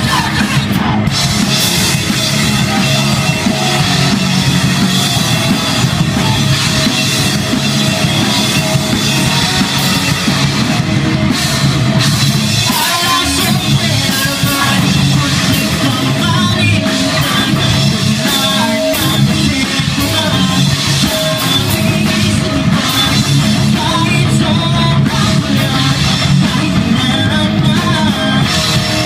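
A hardcore punk band playing live, with distorted electric guitar, bass guitar and a drum kit going full tilt under a vocalist singing into a microphone. It is loud and steady throughout.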